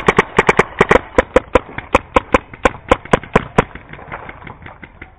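Paintball marker firing rapidly, several shots a second, until it stops about three and a half seconds in. Fainter paintball shots keep popping after that.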